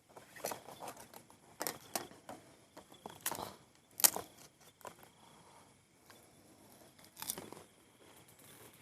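Irregular rustling and crinkling with a few sharp cracks, the loudest snap about four seconds in, like something being handled or crumpled close by.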